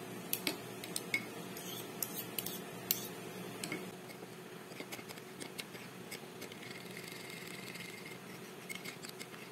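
Metal spoons clinking and scraping against a ceramic ramekin while a sauce is stirred: a quick run of sharp clinks in the first four seconds, then softer stirring with light taps.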